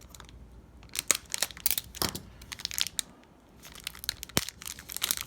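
Plastic wrapper of a trading-card pack crinkling and being torn open, in irregular crackles and snaps with a quieter pause around the middle.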